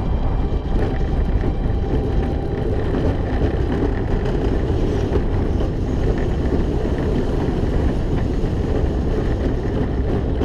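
Steel roller coaster train running at speed on its track, heard on-ride: a steady rumble of the wheels with wind rushing over the microphone.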